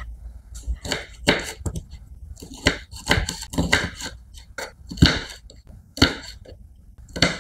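Kitchen knife chopping a bundle of long beans on a wooden cutting board: a series of sharp, irregular knocks as the blade goes through and hits the wood.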